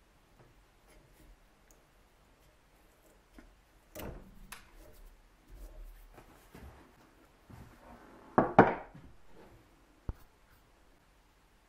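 Workbench handling sounds from hand tools and the workpiece: occasional knocks and short rubs, with a loud brief rasping rub about eight and a half seconds in and a sharp click near ten seconds.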